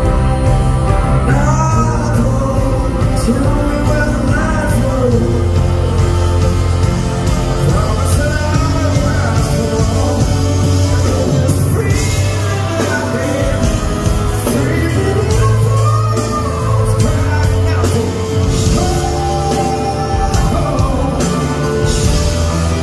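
Live music: a man singing a slow song while playing a grand piano, with steady low notes sustained beneath the melody.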